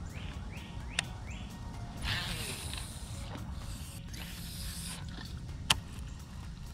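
Baitcasting fishing reel being handled and cranked: three short rising whirs from the reel mechanism, two longer whirring passages, and sharp clicks about a second in and again near the end, the last one the loudest.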